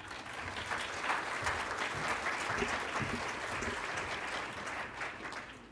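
Audience applauding, a dense patter of many hands clapping that tapers slightly and then cuts off abruptly near the end.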